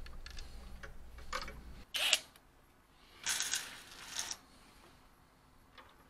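A few short clicks, rattles and scrapes of small metal and plastic parts being handled, the loudest about two seconds in, with quiet gaps between them.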